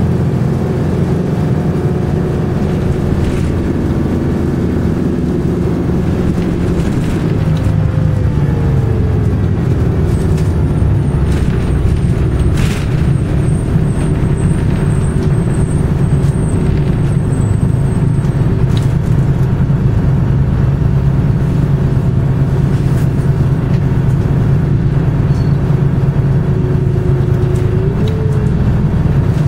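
Detroit Diesel 6V71N two-stroke V6 of a 1982 GMC New Look "Fishbowl" transit bus running under way, heard from inside the cabin as a steady drone whose pitch dips about eight seconds in and rises near the end. A thin high squeal sounds for several seconds in the middle, with a few brief rattles.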